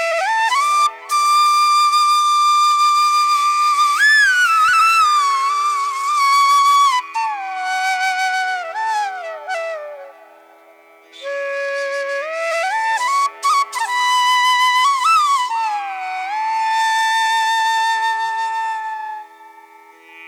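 Background music: a flute plays a slow melody with long held notes and sliding pitch bends over a steady drone. It pauses briefly about halfway through before a new phrase begins.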